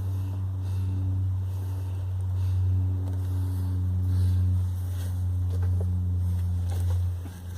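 Portable 12-volt tire air compressor running steadily with a low hum, re-inflating the freshly plugged tire.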